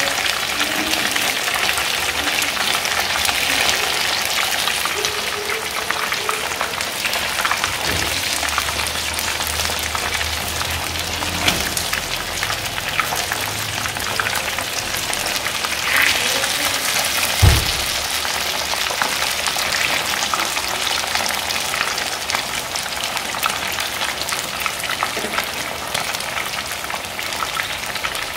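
Batter-coated chicken wings frying in a pan of hot oil: a steady sizzling and crackling, with one sharp knock about two-thirds of the way through.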